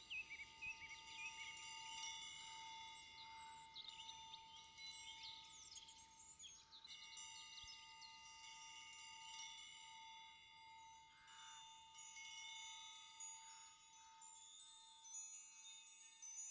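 Faint, shimmering chimes ringing in a soft background track, high tinkling tones over one steady held tone.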